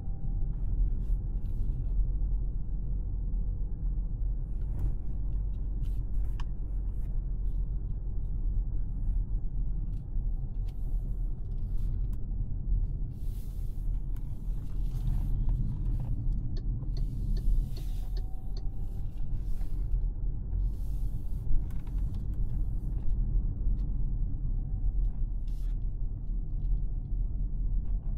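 2025 MG HS being driven: a steady low rumble of engine and road noise, with scattered light clicks and brief hisses.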